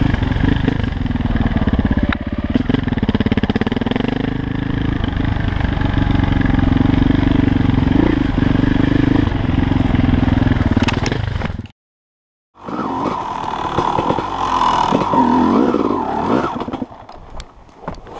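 Off-road motorcycle engine running steadily, heard from the rider's helmet while riding. It cuts to a second of silence about two-thirds of the way through, then another stretch of dirt-bike riding that grows quieter near the end.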